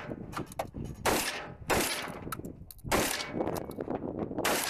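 Four loud gunshots at close range, fired at irregular intervals over about three and a half seconds, each trailing off briefly.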